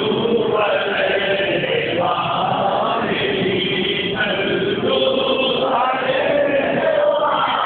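A group of voices chanting together in unison, in held melodic phrases that change every second or two.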